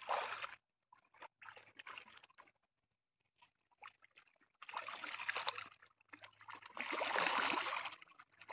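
Faint water sloshing and splashing in a pond, with a few light clicks at first, then two bursts of about a second each in the second half.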